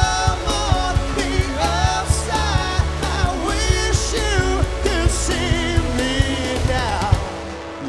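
Live rock band playing: male lead vocal with a backing vocal over electric guitar, bass, keyboard and drums. Near the end the drums and bass stop, leaving the voices and higher instruments ringing on.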